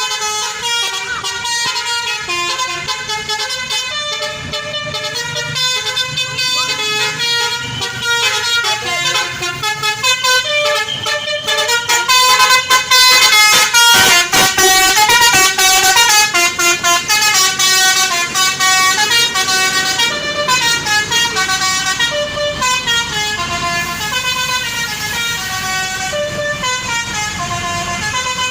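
A bus's basuri 'telolet' musical horn playing melodies, note after note in quick pitch steps, loudest around the middle.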